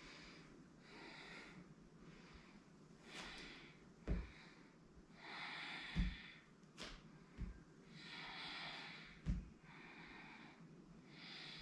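A person breathing slowly and audibly through the nose, a long breath every two to three seconds, with a few soft low thumps in between.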